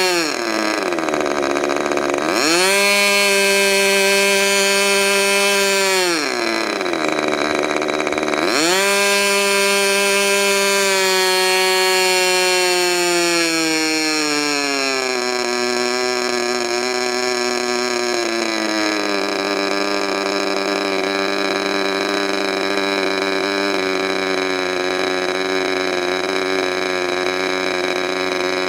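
K&B .61 model airplane glow engine, modified by C.F. Lee, running on a test stand with its throttle being worked: twice it drops sharply from high speed to low and opens back up. Then its speed sinks gradually over several seconds and it runs steadily.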